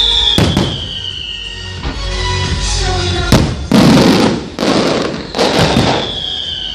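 Aerial fireworks bursting: a sharp bang about half a second in, then a cluster of loud bursts and crackling through the middle, over music with a high falling whistle near the start and the end.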